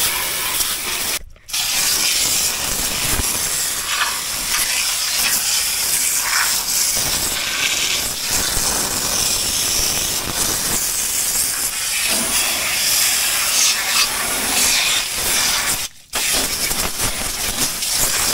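Garden hose pistol-grip spray nozzle jetting water into a side-by-side's frame channels to flush out mud: a loud, steady hiss of spray hitting the frame. It cuts off briefly about a second in and again near the end.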